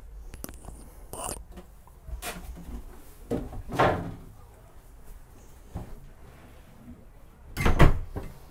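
A handful of separate knocks and bumps, the loudest near the end, from moving through a small wooden boat cabin.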